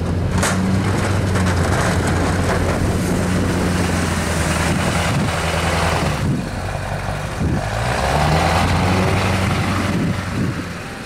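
LB7 Duramax 6.6-litre turbo-diesel of a Chevrolet Silverado dually pushing snow with a Western V-plow, the engine running hard and easing off briefly past the middle before pulling again, over the rushing scrape of the blade through snow and gravel. A sharp click about half a second in.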